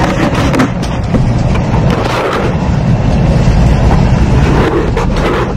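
Shinkansen bullet train carriage noise: a loud, steady low rumble with a few brief knocks mixed in.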